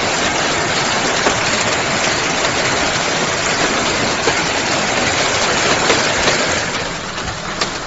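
Hailstorm: hail and heavy rain pelting down on pavement in a loud, steady hiss, with a few sharper clicks of stones striking. It eases slightly near the end.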